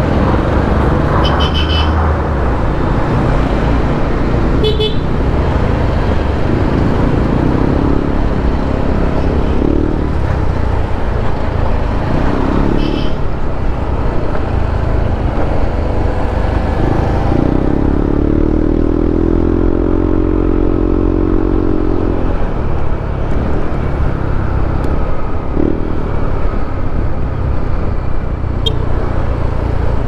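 Motorcycle riding on a road among traffic: steady engine and road noise, with a few short horn toots in the first half and a passing vehicle's engine droning for a few seconds past the middle.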